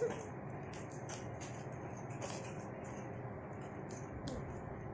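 Scissors cutting into the tape and bubble wrap around a package: faint scattered snips and crinkles of plastic.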